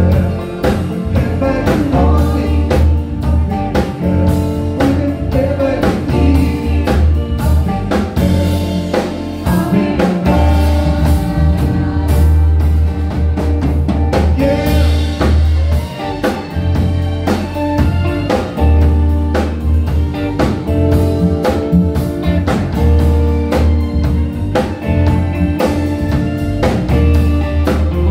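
Live band playing: electric guitar, bass guitar, drum kit and keyboards, with a woman singing.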